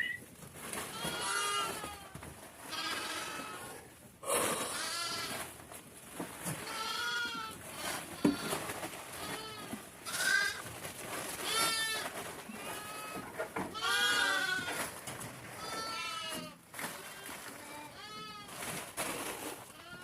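Sheep and goats of a mixed herd bleating, one wavering call after another every second or two, with a single sharp knock about eight seconds in.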